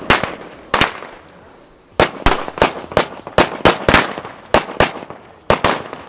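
Firecrackers going off one after another: two sharp bangs in the first second, then, from about two seconds in, a fast irregular run of more than a dozen bangs, a few tenths of a second apart.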